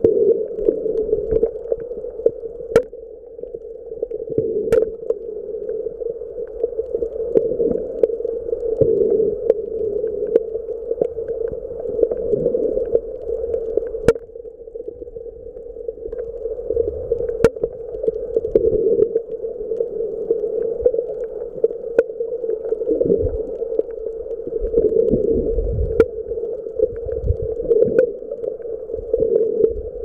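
Muffled underwater ambience recorded while submerged: a steady hum with low surging swells of water movement and scattered sharp clicks.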